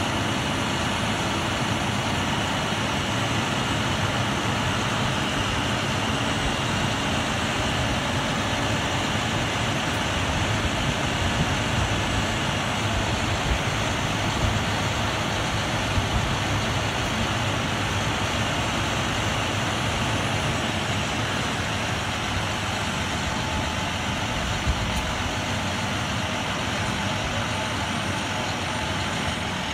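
Crane truck's engine running steadily, with a few small knocks now and then.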